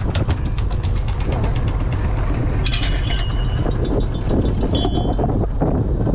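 Fishing boat's engine running steadily, with a rapid drumming of taps, about seven a second, from a freshly landed tuna quivering on the deck as it is being spiked. The taps thin out past the middle.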